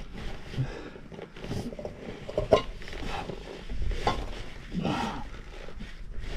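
A man grunting and breathing hard with effort while squeezing himself and his backpack up through a narrow rock cleft, in several short bursts about a second apart.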